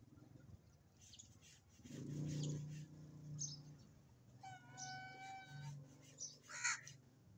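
Background animal calls. An even-pitched call is held for about a second midway, and a short harsh call comes near the end, over a low hum.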